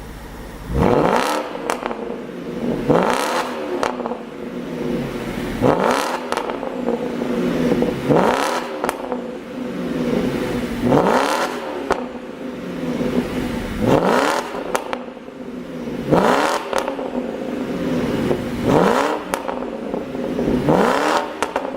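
2007 BMW 550i's 4.8-litre V8 revved in short blips about every two and a half seconds, each rising and falling back to idle with exhaust pops and crackles on the overrun from a pop-and-crackle tune.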